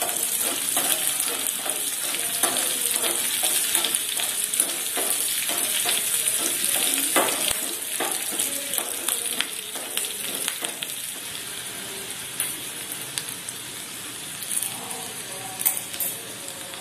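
Chopped green chillies sizzling in hot oil in a small pan, stirred with a metal spoon that clicks and scrapes against the pan. The sizzle grows quieter in the last few seconds.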